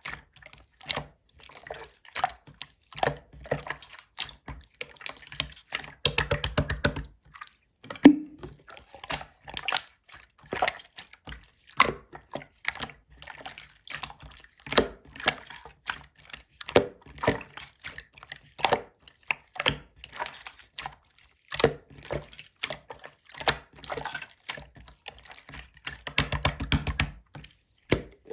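Clear slime being worked by hand, giving a string of short wet clicks, pops and squelches. About six seconds in and again near the end come stretches of rapid crackling.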